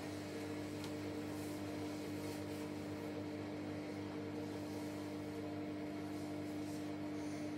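Samsung WW90 front-loading washing machine spinning its drum in the pre-wash spin, a steady motor whine over a low hum that holds one pitch, with no change in speed.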